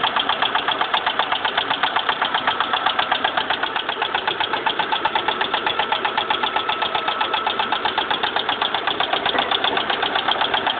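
Car engine idling with a fast, even knocking that runs on without change. The oil-pressure warning light is on, and the mechanic puts the noise down to the engine running short of oil.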